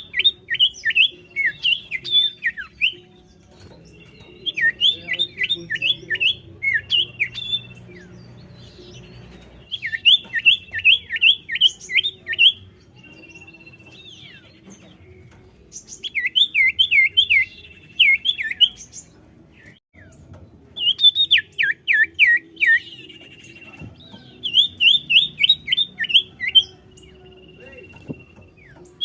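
Common iora (cipoh) singing: bursts of rapid, falling whistled notes, about eight to a burst, repeated every five or six seconds. A thin, held whistle sounds between the bursts.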